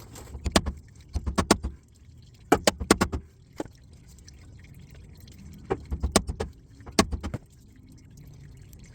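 Bursts of sharp metal-on-metal strikes, several quick hits at a time with short pauses between: a tool being hammered into the old transfer-case output shaft seal to tear it up and expose its metal lip for gripping.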